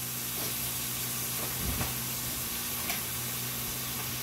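Beef steak searing in butter in a hot pan, with a steady sizzle.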